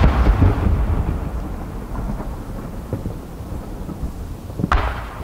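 Aerial fireworks shells bursting. The rumbling tail of one bang dies away over the first second or so, and another sharp bang comes near the end.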